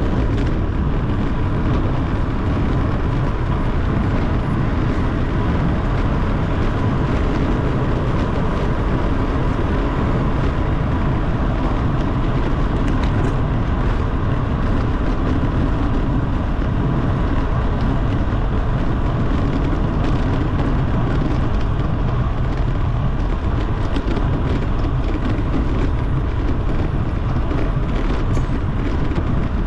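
Steady, loud rush of wind over the microphone of a camera riding on a road bicycle descending at speed, mixed with tyre noise on the road. A faint steady whine sits underneath.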